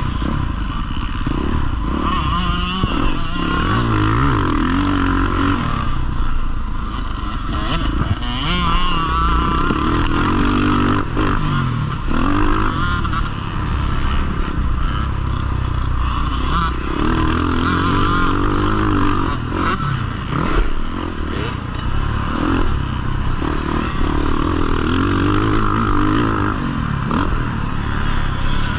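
Husqvarna FC 450 motocross bike's four-stroke single-cylinder engine heard up close from on the bike while it is ridden hard, the revs rising and falling again and again as it accelerates and shuts off between corners and jumps.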